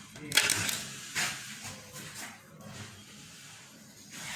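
Hands working on the inside of a voltage stabilizer: a few short scraping, rustling handling sounds, the loudest about half a second in.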